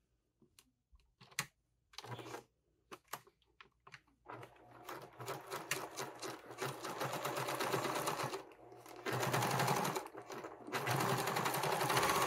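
Sewing machine topstitching across a pocket seam through vinyl and fabric, starting about four seconds in after a few small clicks of handling. It runs in three stretches with two brief pauses.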